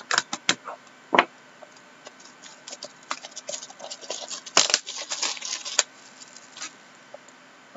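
A hobby knife scratching and clicking as it slits shrink-wrap on a cardboard box, then the plastic film crinkling as it is torn and pulled off, most densely from about three to six seconds in.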